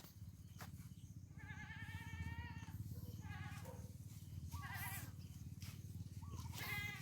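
Goat bleating four times in quavering calls, the first and longest starting about a second in, the last running to the end. A steady low rumble lies underneath.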